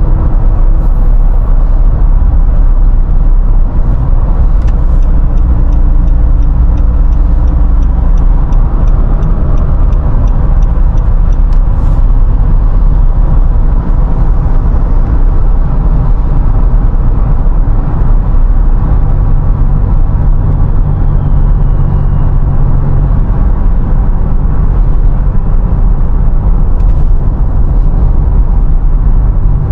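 Steady low rumble of engine and road noise inside a Nissan Navara pickup's cabin cruising at highway speed. The engine's hum grows stronger about two-thirds of the way through.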